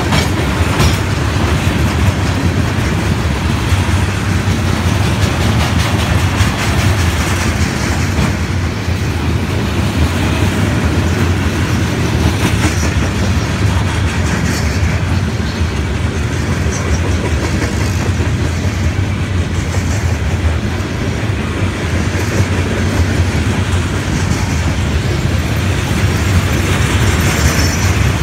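Freight train of loaded steel-coil cars rolling past close by: steady, loud rolling noise of steel wheels on the rails.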